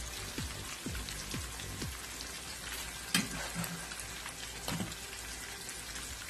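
Flour-coated fish kababs shallow-frying in hot oil in a pan: a steady crackling sizzle, with a sharp click about three seconds in.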